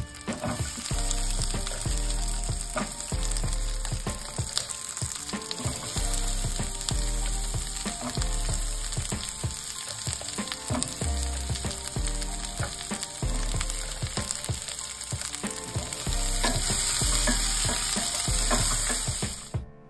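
Onion and bell pepper pieces sizzling and crackling in hot oil in a stainless steel pot, stirred with a wooden spatula. The sizzle grows a little louder near the end, then cuts off.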